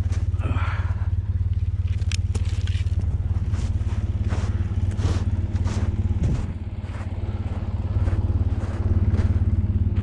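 Polaris Sportsman ATV engine idling steadily, with footsteps crunching in snow over it.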